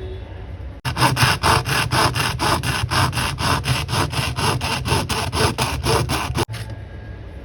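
Fast, even back-and-forth scraping strokes, about four or five a second, like sawing or filing; the sound starts and stops abruptly.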